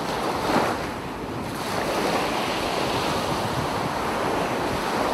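Steady rush of sea waves and wind, with wind buffeting the microphone; a brief swell about half a second in, then even.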